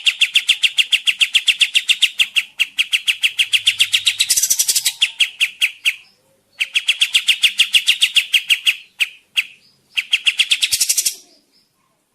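Kapas tembak bird calling in long, fast chattering runs of sharp notes, about ten a second, with a brief pause about six seconds in and a few broken notes before a final harsher run that stops shortly before the end.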